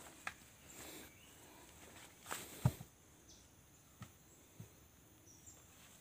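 A few scattered light knocks and thuds from handling cut pieces of a felled coconut trunk and footsteps on forest ground, the loudest thud about two and a half seconds in, over a faint steady forest background.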